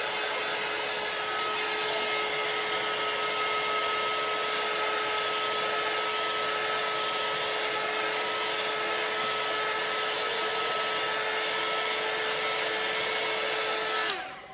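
Small handheld dryer blowing steadily with a constant hum, drying freshly applied chalk paste; it is switched off and cuts out just before the end.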